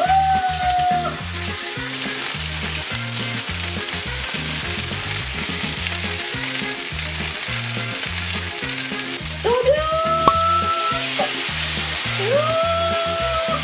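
Chicken pieces sizzling steadily as they fry skin-side down in oil in a frying pan. Background music with a steady low beat and a few sliding notes plays over it.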